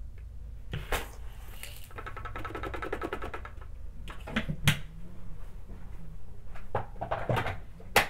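Small hard debris mixed with lint pouring out of a plastic canister onto a shag rug, a rapid rattling clatter lasting about a second and a half. Scattered sharp knocks and clicks follow, the loudest just before the middle and another at the very end.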